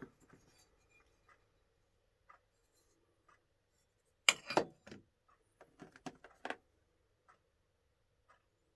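Hand tools being handled and set down: scattered light clicks, then a cluster of knocks and clinks between about four and six and a half seconds in, the first knock the loudest.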